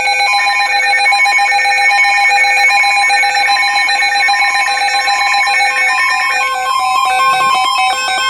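Loud emergency alert attention tones: a steady electronic two-tone signal with a stepped series of beeping tones over it. They sound as a routine weather radio forecast breaks off for a severe thunderstorm warning.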